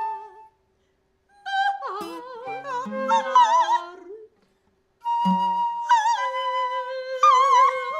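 Free improvised art music: high wordless singing with wide vibrato and acoustic guitar, in short phrases broken by two brief pauses.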